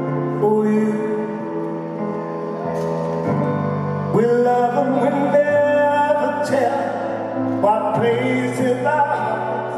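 Live band playing a slow piano ballad: held piano and keyboard chords with a male voice singing long notes.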